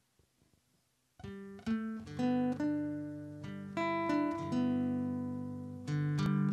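Music on a plucked string instrument, single notes picked one after another and left to ring out, starting about a second in after near silence.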